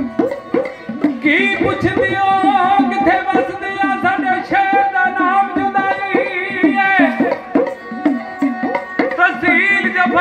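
Dhadi instrumental passage: a sarangi bows a melody over a pair of dhadd hourglass drums struck in a steady rhythm, the drums' pitch bending up and down with each stroke.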